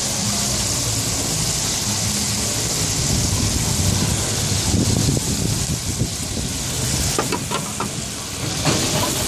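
Squid rings and shrimp sizzling in oil in a frying pan over a gas flame: a steady hiss over a low rumble, with a few light knocks near the end.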